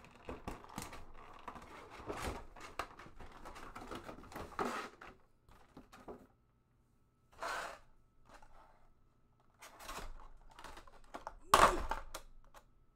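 Clear plastic blister packaging crinkling and crackling as it is handled and pulled apart, in a run of dense crackles, then a few separate crinkles, with the loudest sharp crackle near the end as the lid comes off.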